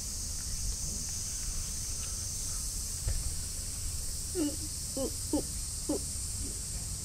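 A cat meowing four or five short times in quick succession, starting about four seconds in, while it begs for a churu treat. A steady high cicada drone runs underneath.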